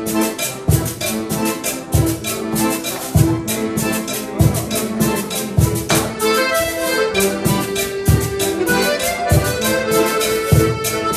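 Accordion ensemble of piano accordion and diatonic button accordions playing a Latin-American/Caribbean-style piece in held chords and melody. Percussion goes with it: a low drum hit roughly every second and quick, steady high strokes.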